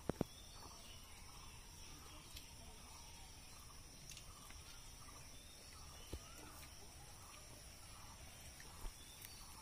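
Faint outdoor ambience: a steady, high insect drone of crickets, with a few short, light clicks, two right at the start and single ones about six and nine seconds in.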